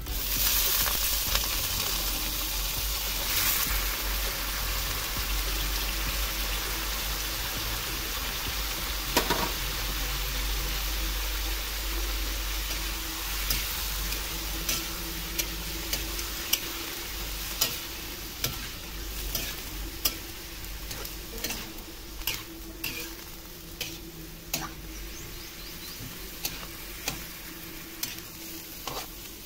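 Raw squid pieces hitting hot oil in a metal wok and sizzling loudly, the sizzle slowly dying down as they fry. About halfway through, a metal spatula starts stirring, scraping and tapping against the wok about once a second.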